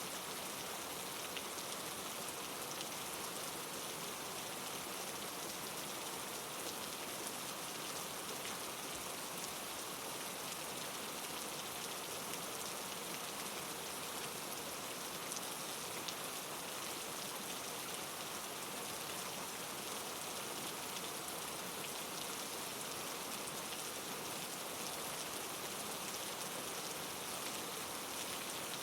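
Steady rain falling, an even hiss of raindrops with fine pattering and no change in intensity.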